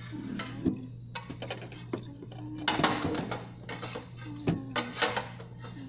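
Kitchen utensils clinking and knocking against dishes and a pan: a scattered run of sharp knocks, with a louder, noisier stretch about three seconds in, over a steady low hum.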